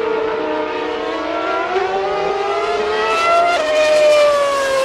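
Several Formula One cars' 2.4-litre V8 engines running at high revs, their pitches climbing together as the cars accelerate. About three and a half seconds in, a louder engine note takes over and slowly drops in pitch.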